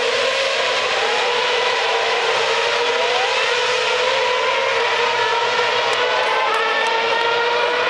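A pack of Formula One cars with high-revving V8 engines accelerating away, several engine notes overlapping, some rising in pitch as they run up through the gears.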